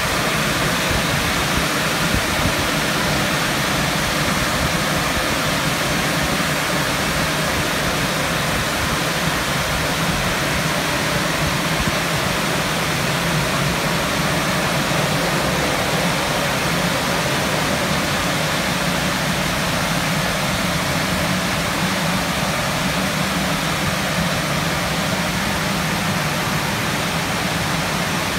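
Istobal M12 rollover car wash at work: Carlite brushes spinning against the car's sides and roof with water spray and the machine's motor hum, a steady even rush as the gantry travels along the car.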